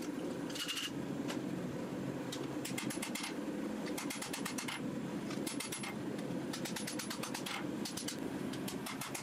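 A steady mechanical hum of running forge equipment, broken by several short bursts of rapid, sharp metallic taps on hot steel at the anvil.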